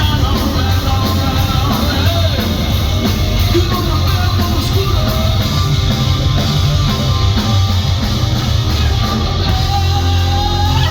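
Live rock band playing loud, guitar-driven hard rock, heard through a concert hall's PA.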